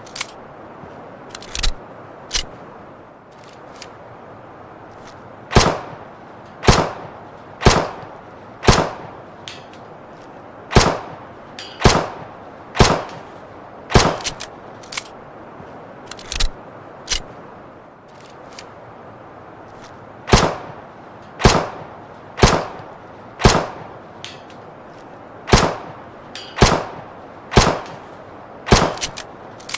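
Luger pistol firing single shots, mostly about a second apart in short strings, each report sharp with a brief echoing tail, over a steady hiss.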